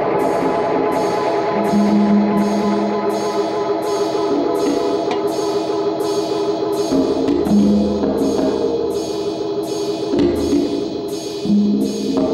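Background music: a steady beat of about two hits a second over long held chords.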